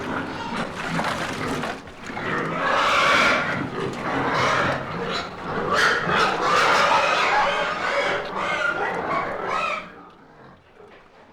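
Many pigs squealing and grunting together at feeding time in a pigsty. The noise stops abruptly about ten seconds in, leaving only faint background noise.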